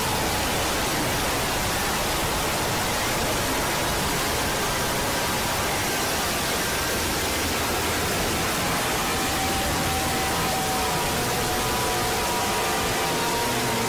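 Loud, steady static-like noise filling the whole range, with faint held tones buried beneath it that shift slightly in pitch near the end: an edited 'punishment' sound effect.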